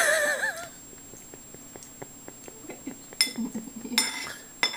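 A brief wavering cry right at the start, then a spoon clinking against a dish a few times, the sharpest clinks in the last two seconds.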